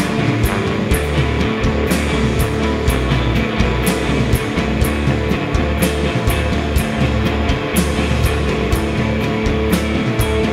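Live heavy psychedelic rock band playing: loud electric guitar, electric bass (a Rickenbacker-style bass) and drum kit over a heavy low end. Cymbals are struck on a steady beat about twice a second.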